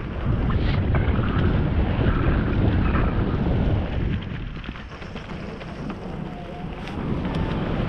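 Wind buffeting the microphone of a helmet-mounted action camera as a mountain bike rolls down a dirt singletrack, mixed with the rumble of the tyres and light rattles from the bike. It eases off for a couple of seconds in the middle.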